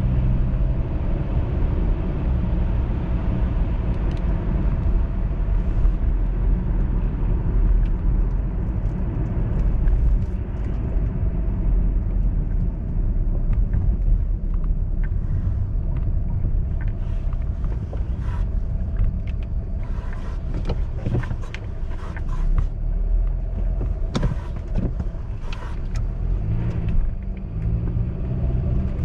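Car driving on a snowy, slushy road, heard from inside the cabin: a steady low engine and tyre rumble, with scattered sharp clicks and ticks, mostly in the second half.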